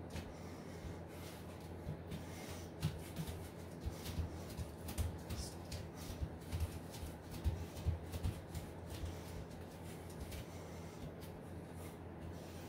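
Soft irregular thumps and rustling from a person dancing, as feet land on the floor and clothing brushes. A steady low hum runs underneath. The thumps come thickest in the middle stretch.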